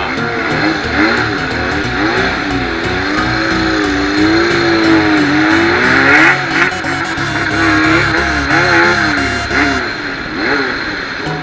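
Music with a gliding sung melody and a steady beat, heard inside a car over the car's running noise.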